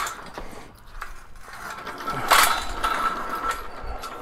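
OTC motorcycle lift jack being turned and rolled across a concrete floor: metal rattling and clicking from its frame and casters, with a louder clank a little over two seconds in.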